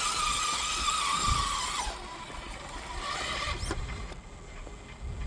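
Electric motor and geartrain of a 1/10-scale RC rock crawler whining as the truck backs up: a steady high whine that rises in at the start and stops after about two seconds, leaving quieter noise.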